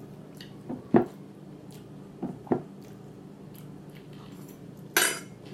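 Close-miked eating sounds: chewing with a few sharp wet mouth clicks and smacks, the loudest about a second in, and a short noisy rush about five seconds in.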